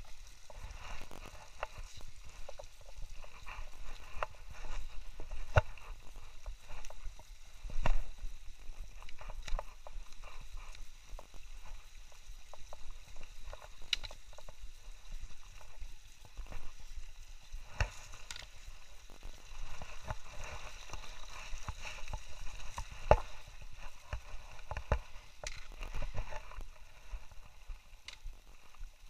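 Footsteps crunching and scraping over loose rock and gravel, with brush brushing past and knocks from the handheld phone; the steps are irregular, with a few louder knocks.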